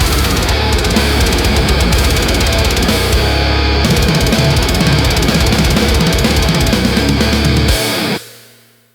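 Loud heavy metal music, dense and unbroken, that ends abruptly about eight seconds in and leaves a short fading tail.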